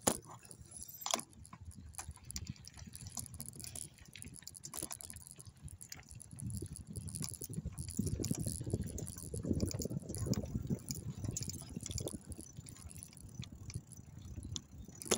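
Bike riding over rough ground: scattered clicks and rattles, with a low rumble that grows louder through the middle.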